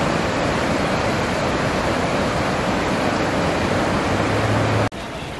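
Steady rushing of river water. Near the end it cuts off abruptly to a quieter flow of water.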